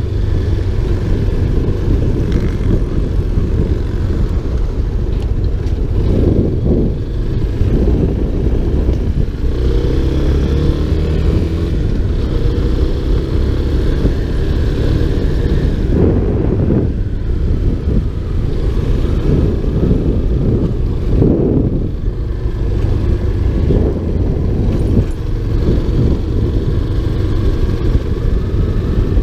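Motorcycle engine running while riding, under heavy low wind rumble on the microphone. About ten seconds in, the engine note rises briefly as the bike accelerates.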